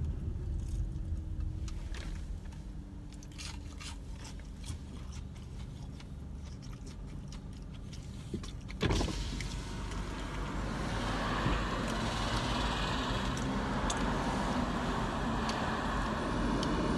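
Car driving, heard from inside the cabin: a steady low road and engine rumble. About nine seconds in there is a sudden thump, after which the road and traffic noise becomes louder and brighter.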